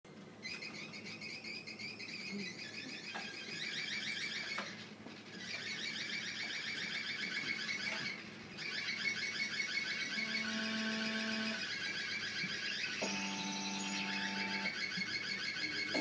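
Live electronic music played on a keyboard: fast, high chirping trills repeated in phrases, broken twice by short gaps, with low held keyboard notes coming in beneath from about ten seconds in.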